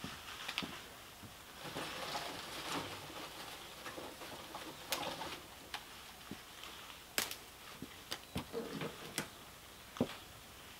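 Light clicks, knocks and rustling of things being handled at a wooden outdoor kitchen counter, with soft rustling early and sharper scattered clicks from about halfway through.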